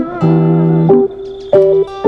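Background music: guitar playing plucked notes.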